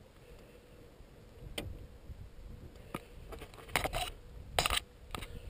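Handling noise from gear being moved in a car boot: a couple of isolated sharp clicks, then louder bursts of clattering and scraping from about three and a half seconds in.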